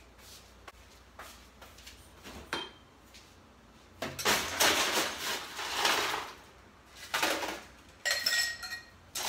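Ice cubes dropped into a drinking glass, clattering and clinking: a long rattle about four seconds in, then shorter clinks with the glass ringing near the end.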